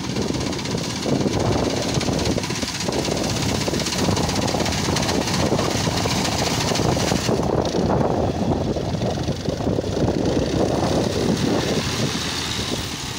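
Fiat tractor's diesel engine running steadily under load, driving a front-mounted reaper as it cuts standing wheat.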